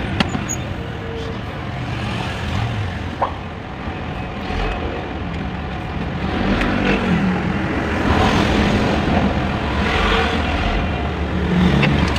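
Motor vehicle engine noise: a steady low rumble whose pitch shifts and that swells up a few times in the second half.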